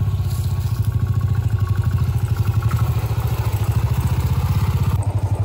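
Single-cylinder engine of a Royal Enfield Bullet-style motorcycle running steadily at low revs, with an even, rapid pulse.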